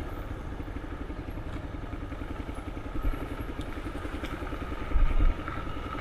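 Single-cylinder motorcycle engine running at a steady, even low speed. A brief low thump comes about five seconds in.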